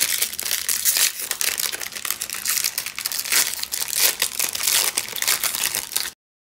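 Foil wrapper of a 2021 Topps Series 1 baseball card pack crinkling and crackling as it is torn and peeled open by hand. The sound stops suddenly about six seconds in, leaving dead silence.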